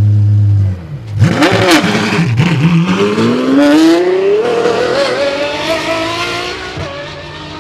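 A steady low engine drone cuts off under a second in. A supercar engine then blips twice and accelerates hard, its pitch climbing steadily for several seconds before easing and fading as the car pulls away.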